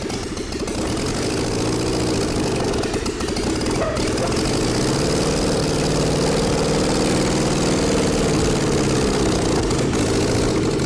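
Four-cylinder four-stroke car engine, running on rubber piston rings in place of steel ones, running steadily on a test stand just after starting, a little louder after about two seconds in.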